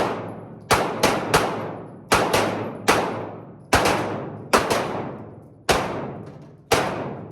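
Pistol shots fired at an uneven pace, about eleven in all, some in quick pairs, each one ringing on with a long echo.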